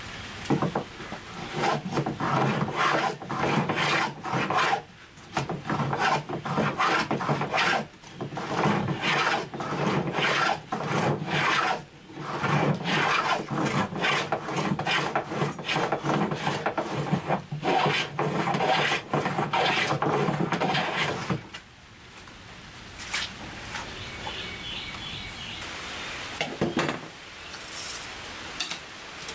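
A hand tool abrading oak in quick, rough back-and-forth scraping strokes with a few short pauses. The strokes stop about three-quarters of the way through, leaving a quieter stretch with a few small sounds.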